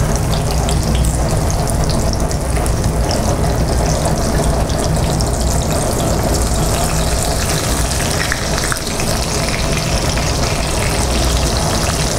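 Breaded green beans sizzling steadily in hot oil in a frying pan, a continuous crackling hiss over a steady low hum.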